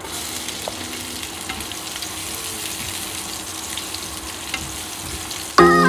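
Cauliflower, broccoli and chicken stir-fry sizzling in a nonstick frying pan, with small crackles and pops scattered through. Music comes in just before the end.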